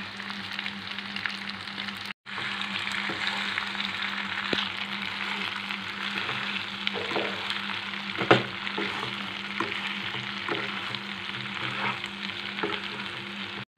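Macaroni and vegetables sizzling in hot oil in a kadai while a wooden spatula stirs them, with scattered scrapes and knocks of the spatula against the pan, the loudest about eight seconds in. The sound breaks off briefly about two seconds in.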